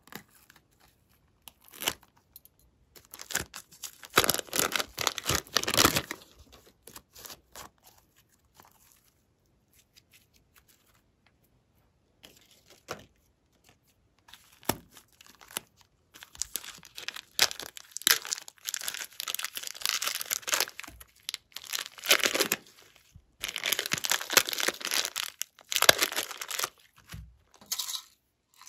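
Slime squeezed out of plastic piping bags in crackling, sputtering spurts, in two long stretches with quiet pauses between, after a short snip of scissors through a bag near the start.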